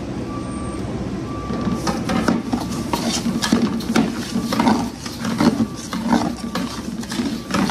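A long metal spatula stirring and scraping moong dal grains in a large stainless steel stockpot while the dal roasts in a little oil. Repeated irregular scraping strokes start about two seconds in, over a steady background noise.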